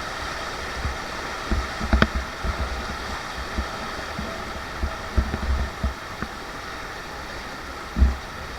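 Steady rush of river water, broken a few times by short low thumps.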